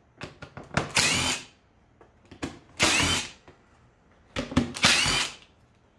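DeWalt cordless impact driver backing out screws from a saw's plastic top cover, running in three short bursts of about half a second, its pitch rising each time, with small clicks between.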